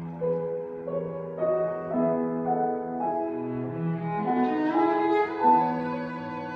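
Cello music played bowed: a low held note sounds under a slow upper line that steps from note to note.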